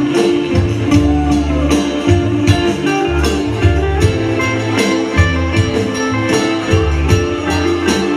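Live band music for a Cambodian pop song, with guitar over a steady beat and a pulsing bass line.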